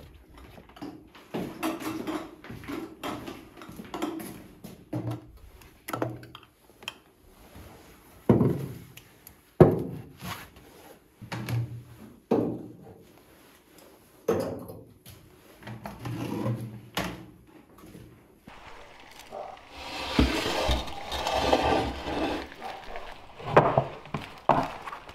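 Footsteps on paving stones at about two a second, then a series of sharp knocks and clinks as glass preserve jars are set down on wooden pantry shelves. Later comes a few seconds of rustling, and near the end a heavy pan is set down on a wooden board with a couple of thuds.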